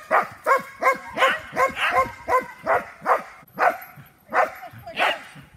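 A dog barking over and over while running an agility course, about a dozen barks at roughly two a second.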